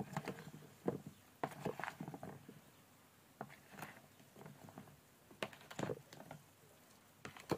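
Greek salad being stirred with a spoon in a bowl: irregular soft clicks and short wet scrapes as the chopped vegetables, olives and feta are turned over.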